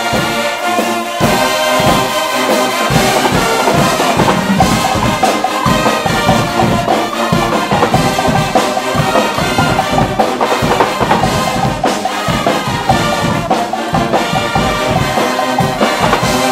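Guggenmusik brass band playing loudly: trumpets, trombones and sousaphones together, with drums coming in about a second in and keeping a steady beat.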